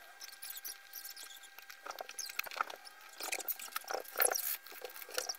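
Flush cutters snipping the excess component leads off a soldered circuit board: a quick, irregular series of sharp little clicks.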